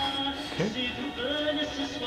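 Background music: a children's song playing, with held melodic notes.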